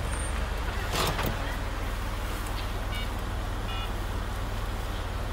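Car engine idling steadily while the car waits at a car park barrier, a low even rumble with a short rustle about a second in.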